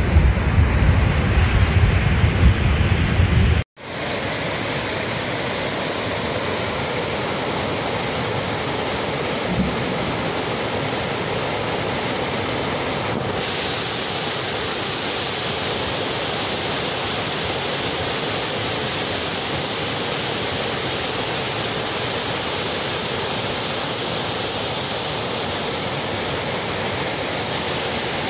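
Floodwater in a ravine rushing steadily. In the first few seconds a heavy low rumble of wind on the microphone sits over it, then a cut, then the water alone as an even rushing.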